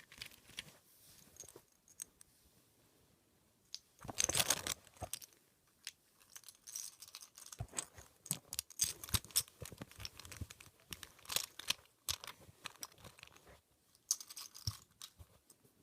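Rubik's Cube being turned and handled: faint, irregular clicks and rattles of plastic, with a dense flurry about four seconds in.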